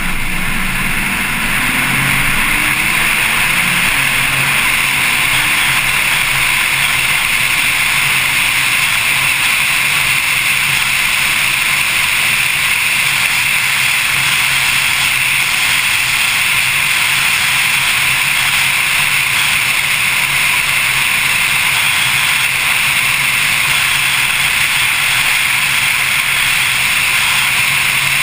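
Porsche 911 Carrera S flat-six at speed on track, heard under a steady rush of wind and road noise over an exterior-mounted camera. The engine note rises for the first few seconds as the car accelerates out of a corner, then holds steady.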